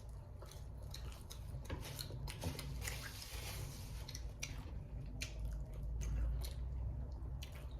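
Close-up chewing and eating sounds: wet mouth clicks and crunchy bites of fast food, with a short rustle about three seconds in, over a low steady hum.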